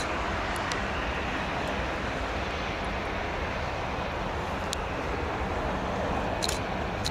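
Airbus A320 jet engines running at idle as the airliner taxis, a steady, even hum with no change in pitch.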